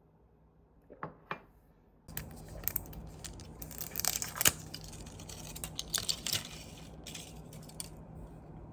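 Packaging being handled, crinkling and tearing with many sharp clicks over a low steady hum that starts about two seconds in; two light taps come just before it.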